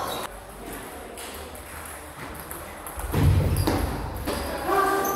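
Table tennis balls clicking on tables and bats from nearby play, with a dull thump about three seconds in and a short voice near the end.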